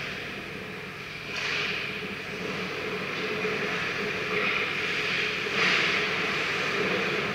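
Ice rink ambience: a steady low hum under the scraping hiss of skate blades on the ice, which swells about one and a half seconds in and again near the end.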